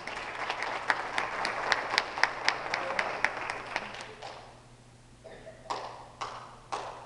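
Rhythmic hand clapping, about four claps a second, over a wash of applause, fading out after about four seconds. Then a few separate sharp hits about half a second apart.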